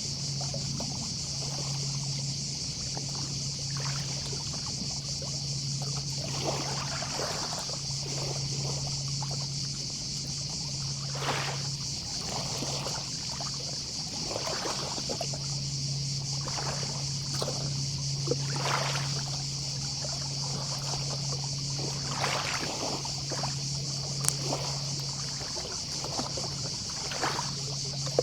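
Small sea waves lapping on the shore in irregular soft washes every second or two, over a steady high chorus of distant cicadas. A low hum comes and goes underneath.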